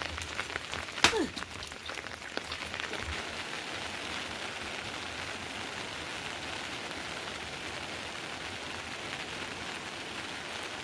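Heavy monsoon rain falling steadily, with a sharp click about a second in.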